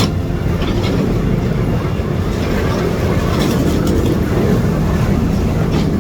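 Excavator's diesel engine running steadily under load, with a few scattered knocks and clatters of the material being handled.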